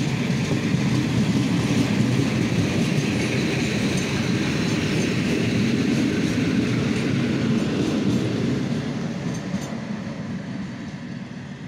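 ER9T electric multiple unit passing close by at speed, its wheels running on the rails; the noise fades steadily over the last few seconds as the end of the train moves away.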